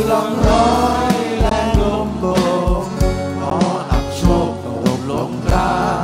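Live band playing a song: acoustic and electric guitars with several voices singing the melody over a steady beat.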